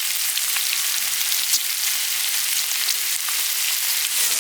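Meat sizzling as it grills: a steady high hiss with small crackling pops scattered through it.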